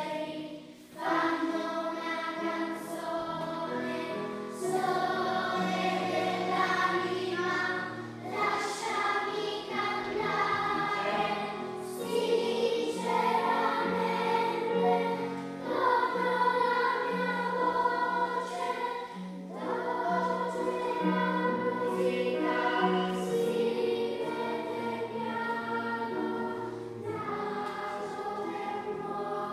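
Children's choir singing a song, accompanied by an electric keyboard.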